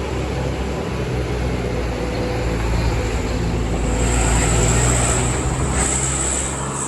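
Tour bus diesel engine running as the bus drives past close by, growing louder to a peak about four seconds in and then easing off, with a high hiss joining in near the peak.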